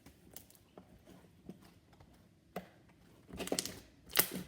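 Sticky slime being squished and pulled apart by hand, giving scattered wet clicks and pops, with a louder run of them near the end. The slime has turned sticky from the added pigment.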